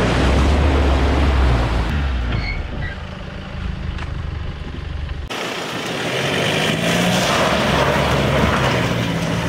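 Four-wheel-drive vehicles driving off-road: an engine running under load with a loud rushing noise as the vehicle pushes through water, then an abrupt change about five seconds in to another engine straining up a dirt track.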